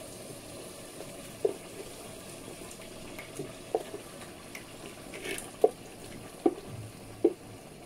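Meat-cooking water being poured into a pot of soup, with a low steady background and about five short plops or splashes.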